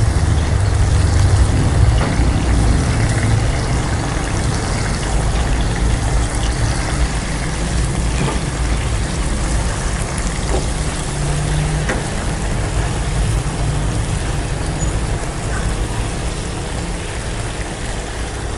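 Shrimp and seafood mushrooms sizzling in hot oil in a frying pan, with the spatula now and then scraping and tapping the pan; the sizzle eases off slowly.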